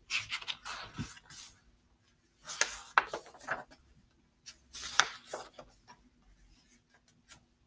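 Paper rustling as a picture book is handled and its pages are turned, in three bursts with a few sharp taps.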